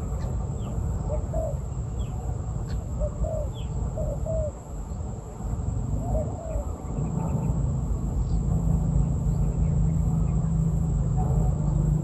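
Spotted doves cooing: short low hoots in small groups of two or three, with small birds chirping faintly over a constant low rumble. A steady low hum sets in about halfway through.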